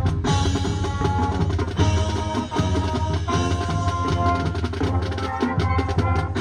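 High school marching band playing, with held chords that change every second or so over steady drum strokes and a heavy bass.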